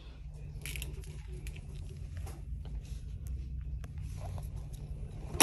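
Light rustling and scattered clicks of packaged store merchandise being handled on a shelf, over a steady low hum. A single loud knock or clatter comes right at the end.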